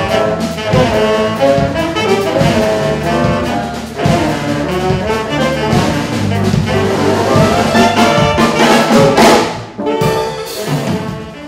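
Saxophone ensemble playing in harmony over an electric guitar and bass line, fading out near the end.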